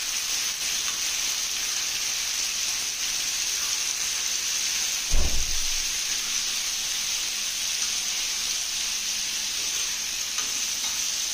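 Chicken pieces frying in hot oil on a tawa griddle, a steady sizzle while they fry toward golden brown. A single low thump about five seconds in.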